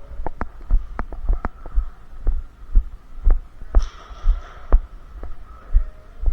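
Walking footsteps, low thuds about twice a second, with sharp light clicks and rattles between them.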